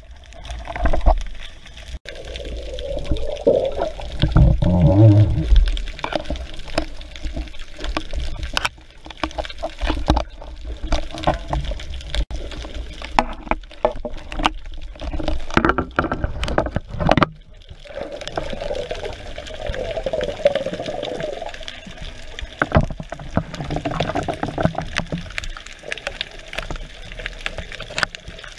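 Water sloshing and gurgling close to the microphone, with many sharp clicks, swelling louder twice.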